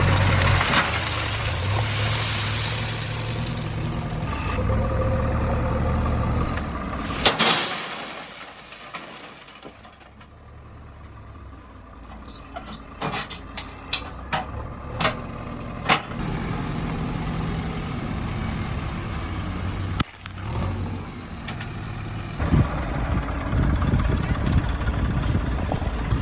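Diesel engines of heavy machinery running, in several stretches that start and stop abruptly. In a quieter stretch in the middle, a run of sharp knocks sounds over a low engine rumble.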